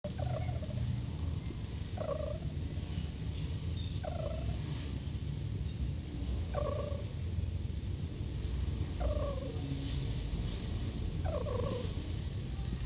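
A pet civet (musang) snoring in deep sleep: a short snore that falls in pitch about every two seconds, six in all, over a steady low hum.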